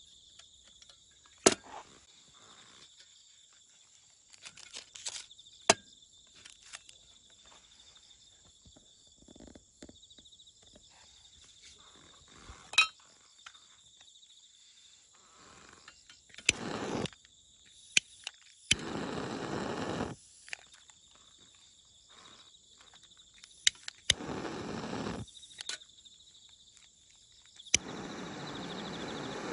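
Sharp metal clicks as the small folding 笑's wood stove is fitted together, then several hissing bursts in the second half. Near the end a click and a steady hiss as a long-nozzle lighter is held to the fuel tablet in the stove. Insects trill steadily throughout.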